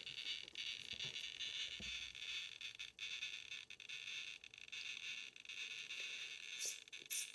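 Faint steady hiss of room tone with a few light handling clicks, and two brief rustles near the end.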